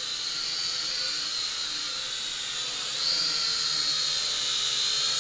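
Small toy quadcopter drone in flight: its electric motors and propellers make a steady high whine with a hiss. The pitch and loudness step up about three seconds in.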